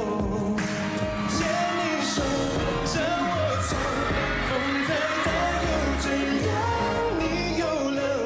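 Pop song playing, with a lead vocal singing a melody over a steady bass line.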